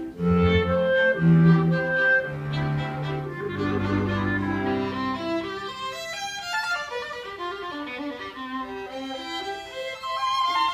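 Live chamber music: violins playing classical music with clarinet and harp. Strong low notes fill the first few seconds, then the lower parts drop out about halfway through and the bowed strings carry on with a lighter, quieter line.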